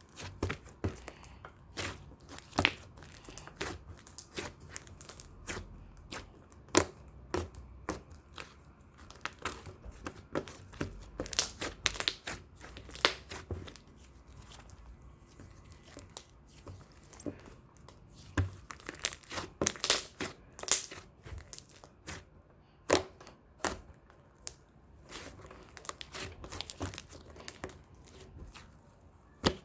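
Sky-blue glitter slime being handled, giving irregular sticky pops and crackles, several a second at times, with quieter stretches between.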